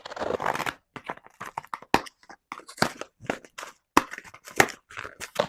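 Parcel packaging being torn open and handled: a tearing rush about a second long, then a run of sharp crackles and crinkles.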